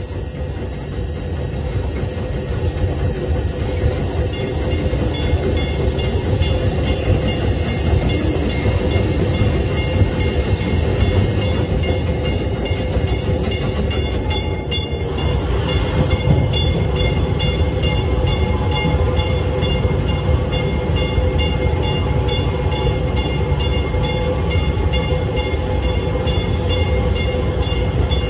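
Propane-fired 24-inch gauge steam locomotive built by Crown Metal Products running, heard from its cab: a steady low rumble with steam hiss. From a little past halfway, a quick, even beat of a few ticks a second joins in.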